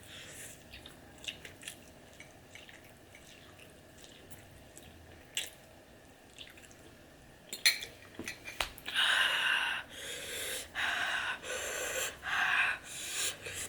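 Quiet chewing with small mouth clicks, then from about nine seconds in a run of five or six loud, hissing breaths through the mouth, one after another: panting against the burn of very spicy ramen.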